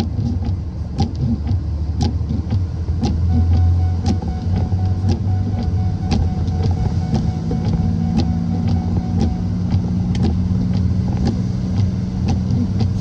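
Steady engine drone and road noise inside a truck cab, with the engine note settling higher about seven seconds in. Light ticks sound about once a second throughout.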